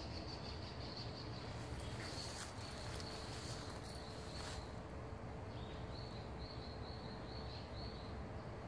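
Insects chirping: a high hiss from about two to four and a half seconds in, then a run of short repeated chirps about three a second, over a steady low background noise.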